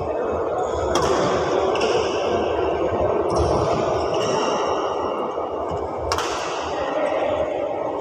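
Badminton rally in a large echoing hall: two sharp racket-on-shuttlecock hits about five seconds apart, with short high shoe squeaks on the court over a steady hall din.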